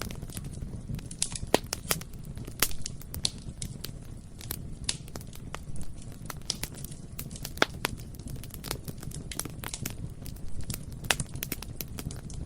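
Bonfire burning: a steady low rumble of flames with irregular crackling and sharp pops and snaps from the burning wood throughout.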